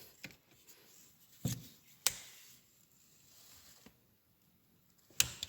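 A few isolated sharp clicks and knocks of hand tools on metal: one about a second and a half in, another half a second later, and one near the end, with little else between.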